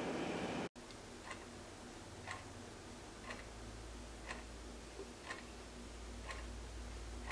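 A wall clock ticking, one sharp tick a second, six ticks in all, after a brief stretch of room hiss that cuts off abruptly.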